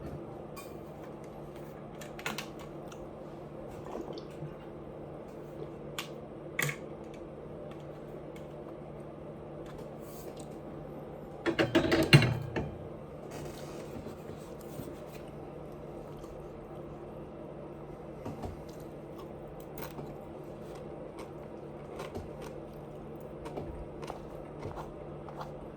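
Eating sounds: scattered small chewing and mouth clicks over a steady low hum, with one loud burp lasting about a second near the middle.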